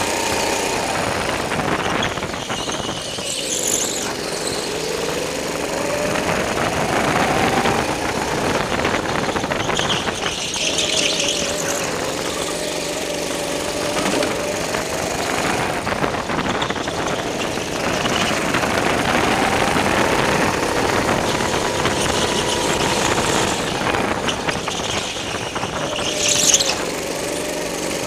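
Go-kart engine running under throttle, its pitch rising on the straights and dropping into the corners, with tyres squealing briefly three times as the kart slides through turns.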